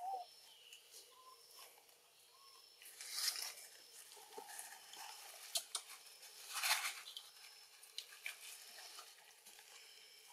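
Rustling in grass and leaves with small scattered clicks as macaques move and pick food from a metal pan, with two louder bursts of rustling about three seconds and six and a half seconds in.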